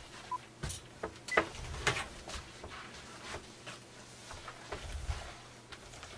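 Scattered light clicks and knocks at irregular intervals, with one short beep about a third of a second in.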